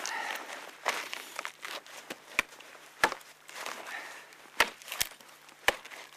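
Dry pine wood being broken and handled by hand: about half a dozen sharp snaps of twigs and branches at irregular intervals, with crunching and rustling in between.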